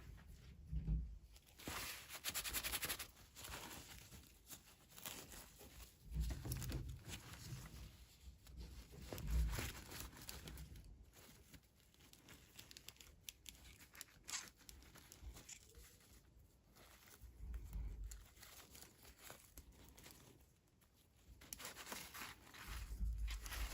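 Toy packaging being opened by hand: irregular crinkling and tearing, with a few dull bumps of handling.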